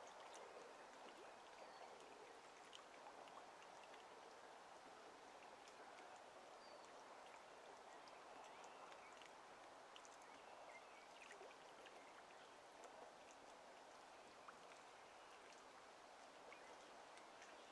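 Near silence: faint steady outdoor hiss, with scattered soft ticks and a few short, faint high chirps.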